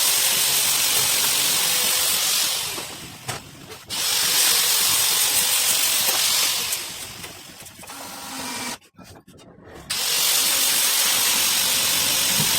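A workshop tool hissing in three bursts of about three seconds each, each starting and stopping suddenly.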